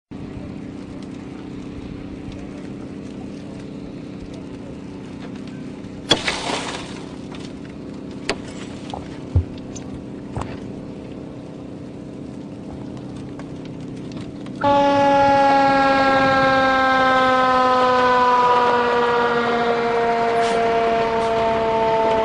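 Steady low engine hum, broken about six seconds in by a sharp bang that fits an airbag going off, followed by a few lighter knocks. About fifteen seconds in, a loud sustained tone starts suddenly and slowly sinks in pitch.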